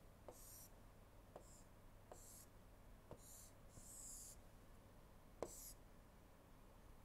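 Faint stylus strokes on a tablet screen: a light tap of the pen tip followed by a short scratchy swish, about six strokes, the tap about five and a half seconds in the loudest. A faint steady hum lies underneath.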